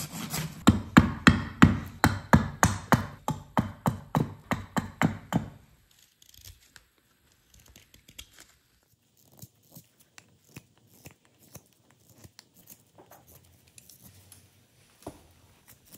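Hand saw cutting through a birch branch in steady strokes, about three a second; about five and a half seconds in the sawing stops and only faint, scattered scrapes and clicks of a carving knife shaving the wood follow.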